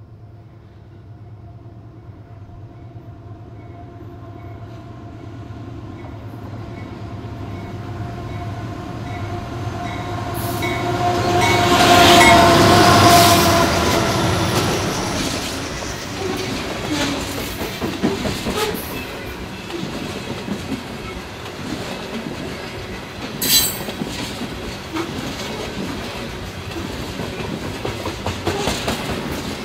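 Freight train led by two diesel locomotives, a GE AC4400CW and an EMD SD70MAC, approaching and passing close by: the engine sound grows louder to a peak about 12 seconds in, then gives way to the rattle and clickety-clack of refrigerated boxcars rolling past, with one sharp clank about 23 seconds in.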